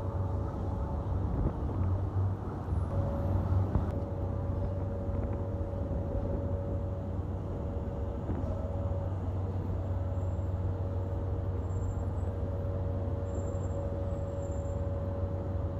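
City street traffic noise: a steady low engine drone from motor vehicles, with a thin steady whine over it, a little louder in the first few seconds.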